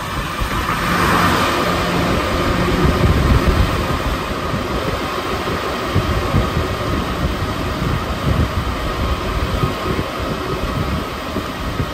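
Interior running noise of an Alstom NS-93 rubber-tyred metro car travelling between stations: a steady, dense rumble from the tyres and running gear, swelling slightly a second or so in.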